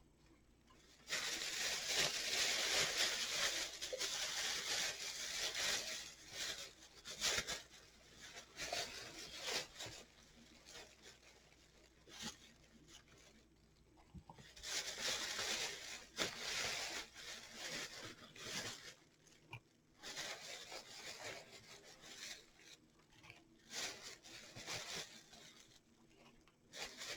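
Artificial flowers being rummaged through and handled: irregular bursts of rustling and crinkling of plastic and fabric flowers, the longest in the first few seconds and again about halfway through.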